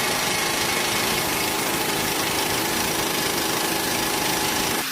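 A loud power tool running continuously with a fast rattle, cutting off suddenly near the end.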